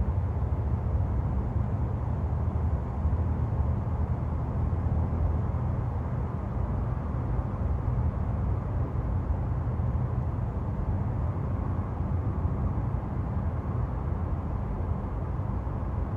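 Steady low rumble of road traffic, with no single vehicle passing distinctly.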